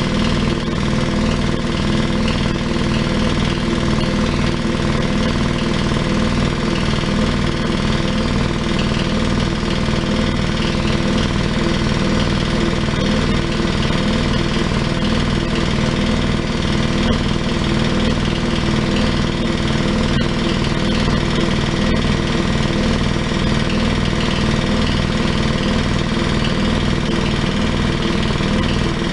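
Ingersoll-Rand T21 air compressor, its pump driven by a 5 HP electric motor, running steadily without a break. It is charging its 60-gallon tank, with the pressure climbing the whole time.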